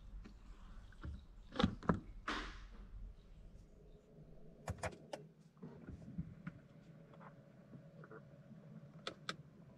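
Audi e-tron GT's driver door being opened and used: two sharp knocks of the handle and latch, a brief rush of noise, then more scattered clicks. From about halfway a faint steady hum sets in as the car's electronics power up.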